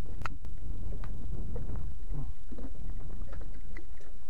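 Steady low rumble of wind buffeting the microphone on a small open boat at sea, with a sharp click just after the start and a few faint handling sounds.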